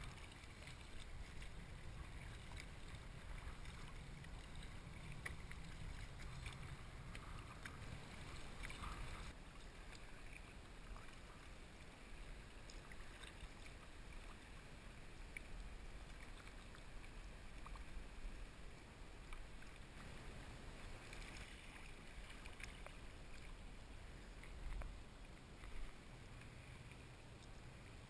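Water lapping and splashing around a sit-on-top kayak as it is paddled, with small drips and ticks and a low rumble of wind on the microphone. Two louder bumps come near the end.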